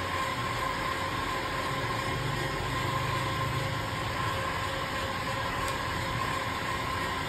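Handheld electric heat gun running steadily, a hiss of blown air with a constant hum from its fan motor, as it heats tint film on a windshield to shrink it to the glass.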